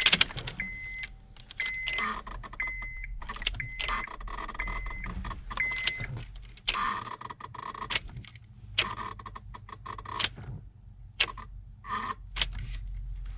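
Key jangling and clicking in the ignition of a Honda Accord as it is turned over and over without the engine starting, with a short high beep repeating about once a second for the first six seconds, then several short buzzing bursts. The noise comes from the failing electrical actuator of the ignition switch, a common fault on 2003–2007 Accords.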